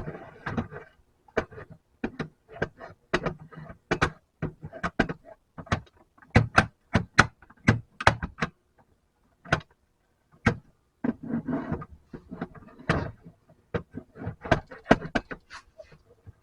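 Irregular sharp metal clinks and knocks, several a second with a brief lull a little past the middle, from lead-casting tools being worked against the melting pot while casting sinkers.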